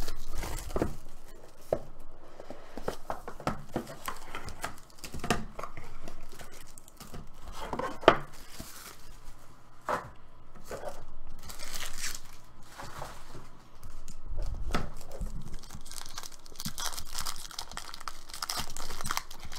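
Plastic shrink wrap being torn off a trading-card box, then a foil card pack torn open, with crinkling and rustling of the wrapping and light taps of box and pack on the table. A single sharp snap about eight seconds in is the loudest sound.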